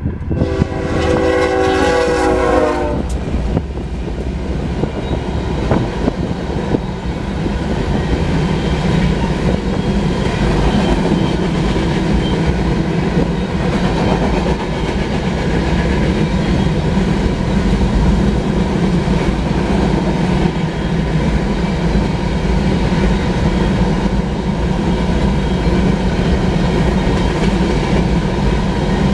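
A diesel freight locomotive's horn blast that cuts off about three seconds in. After it, the loaded sand train's cars roll through the crossing with a steady heavy rumble and a clatter of wheels on the rails.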